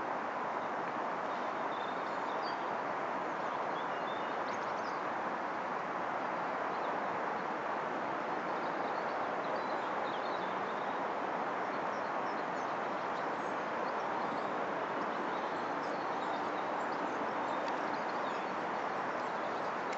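Steady rushing background noise in an open field, with small birds chirping briefly now and then.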